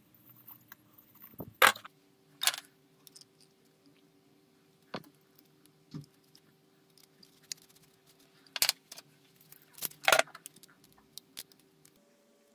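Clinks and knocks of small metal parts being handled at a workbench: aluminium square tubing, 3D-printed plastic brackets, screws and a hex key. There are about four louder knocks among lighter scattered clicks.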